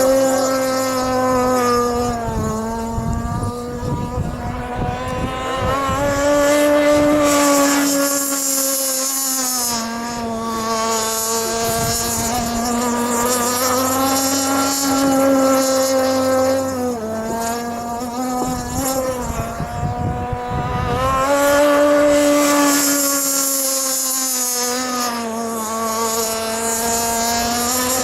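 Gas-powered radio-controlled model boat engine running continuously on the water, its pitched engine note rising and falling every few seconds as the boat throttles and turns around the buoys.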